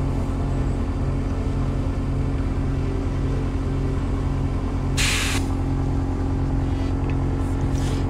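Steady low motor hum from the air supply while a tubeless mountain-bike tyre is inflated through an air-line inflator with a dial gauge. About five seconds in there is a short, loud hiss of air, and a couple of faint short hisses near the end.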